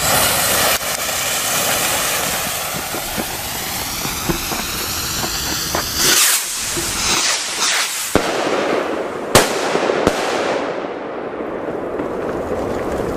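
Trueno bang rockets (knalpijlen) firing: a loud launch whoosh at the start, then several sharp bangs between about six and ten seconds in as the rockets burst, over a continuous hiss.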